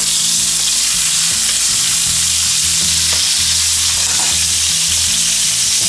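Meat searing in hot bacon grease and butter in a cast iron skillet, a steady loud sizzle as it browns and caramelises.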